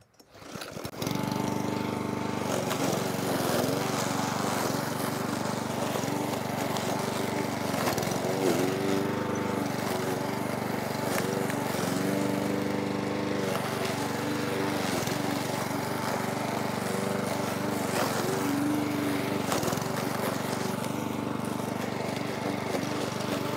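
Parkside PBM 132 B1 petrol lawn mower's 132 cc four-stroke engine cuts in about a second in and runs under load through knee-high, dense grass. Its revs sag and pick up again several times as the thick grass bogs it down, a sign it is close to choking and stalling.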